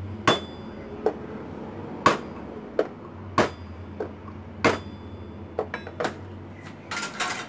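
Kitchen knife knocking down on garlic cloves on a wooden cutting board, crushing them one at a time: about a dozen sharp knocks at irregular intervals, the loudest about two seconds in.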